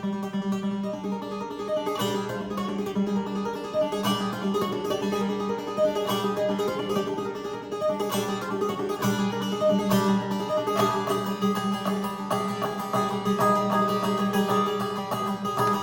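Instrumental music of plucked-string sound, harpsichord- or guitar-like, playing a melody over a steady low note, from a composition written in shifting odd meters.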